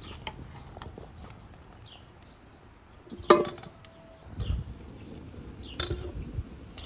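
A perforated metal skimmer clinks and scrapes against a metal cauldron and an enamel bowl as boiled beef hooves are lifted out and dropped in. About three seconds in there is one loud ringing clank, and there is another sharp knock near six seconds.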